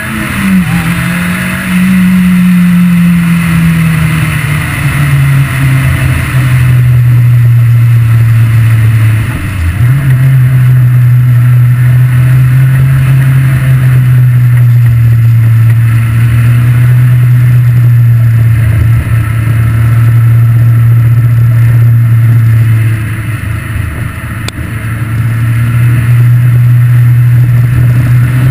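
Ariel Atom's engine heard on board from the open cockpit while driving: the engine note falls over the first few seconds, dips briefly about a third of the way in, then holds a steady pitch for a long stretch. Late on it goes quieter and lower for a couple of seconds, then climbs again near the end.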